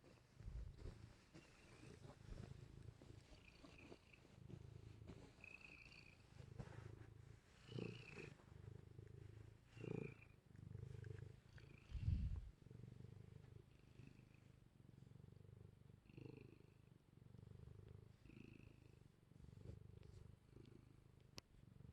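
Domestic cat purring softly in low, rhythmic cycles with its breathing, with a single louder low thump about twelve seconds in.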